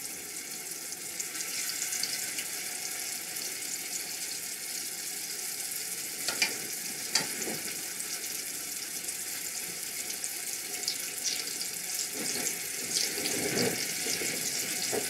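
Mushroom-filled rice paper rolls deep-frying in hot oil: a steady sizzle with scattered pops and crackles.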